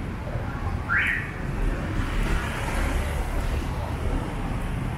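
Street traffic: a steady low rumble of vehicle engines, with a short rising squeak about a second in.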